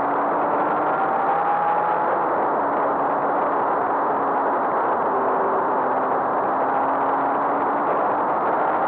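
Go-kart's small engine running at a fairly steady pitch while the kart drives along, heard from on board, mixed with heavy wind and road noise.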